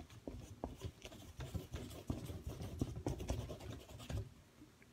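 Stiff paintbrush scrubbing acrylic paint, a run of short, irregular scratchy strokes that stops about four seconds in.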